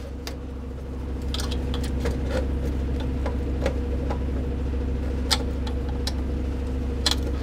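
Screwdriver tightening small screws into terminal blocks in a steel electronics enclosure: scattered light clicks and taps of tool and metal parts over a steady low hum.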